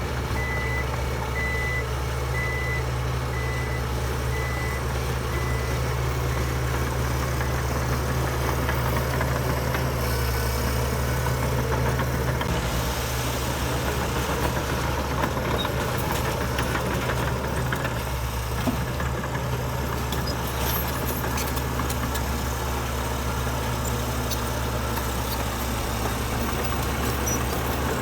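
Heavy diesel construction machinery running steadily. A reversing alarm beeps repeatedly over the first six seconds or so, then stops.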